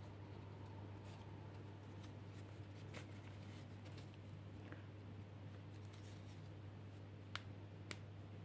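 Faint handling of a crocheted toy while yarn is drawn through its stitches with a needle to sew on the ears: soft rustling and a few small clicks, two of them near the end, over a steady low hum.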